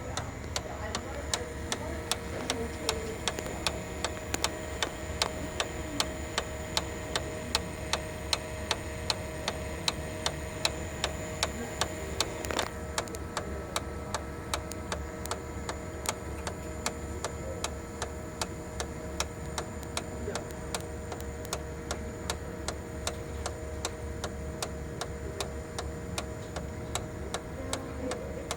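Sharp MX-6240/MX-7040 copier's fuser drive gears ticking in a rapid, even, sharp clicking rhythm over the steady whine of the running machine; the ticks grow fainter about halfway through. The ticking is the sign of a bad bearing-and-gear cluster in the fuser drive that needs replacement.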